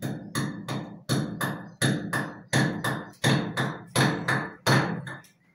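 Steady hammering overhead, about three blows a second, each strike ringing briefly.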